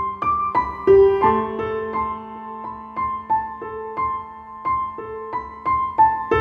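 Background music: a piano playing a gentle melody of single notes, about three a second, over held low notes.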